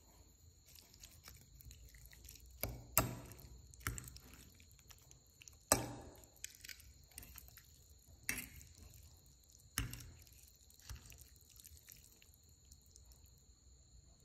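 Spoon and fork mixing rice vermicelli in curry in a bowl: soft wet squishing with about seven sharp clinks of the utensils against the bowl, the loudest about three and six seconds in.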